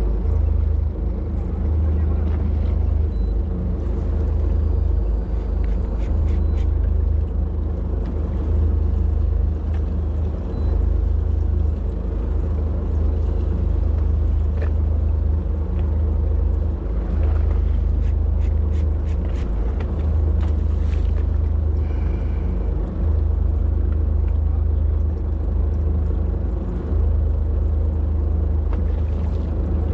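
Fishing boat's engine running steadily, a low, even drone, with a few short clicks and taps partway through.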